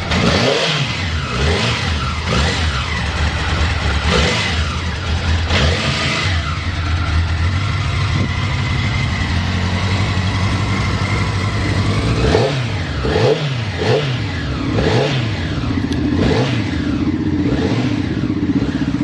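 Honda CBX650 motorcycle's inline-four engine running and being revved in repeated quick throttle blips, each pitch rising and falling back to a steady idle, with a run of blips about one a second past the middle.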